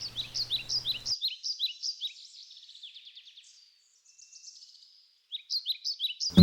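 A small bird chirping: a rapid series of short, high, falling chirps, several a second, that fades for a moment midway and picks up again near the end.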